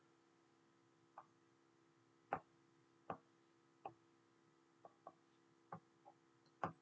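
About nine faint, short clicks at uneven intervals, from the input device used to select and move items on a note-taking screen.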